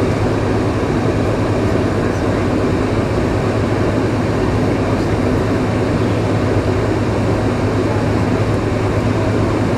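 Steady cabin noise inside a Boeing 747-436 on the ground during taxi, its four engines at low thrust, with a constant low hum and a rumbling haze.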